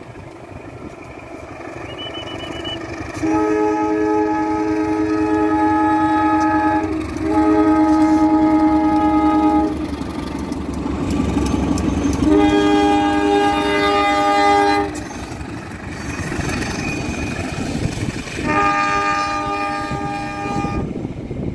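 Air horns of a train headed by several Indonesian diesel locomotives (CC 201, CC 203 and CC 206) sounding four long blasts of about three seconds each. Under them the rumble of the engines and wheels grows as the train approaches and passes.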